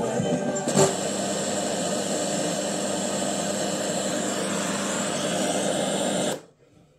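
Steady radio static from an AIWA CS-W660 boombox's speakers while its right-hand knob is turned, off any station. There is a short burst about a second in, and the static cuts off suddenly a little after six seconds, as a slider on the left end of the top panel is worked.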